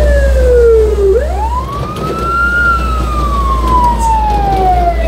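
Fire truck siren heard from inside the cab, wailing in a slow cycle. Its pitch falls slowly, sweeps quickly up about a second in, then falls slowly again. A low rumble sits under the first couple of seconds.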